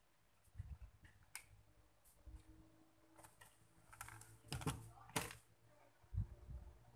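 Scattered light clicks and taps of small parts and hand tools being handled on a repair bench, with a few louder clicks about five seconds in and a low knock just after six seconds.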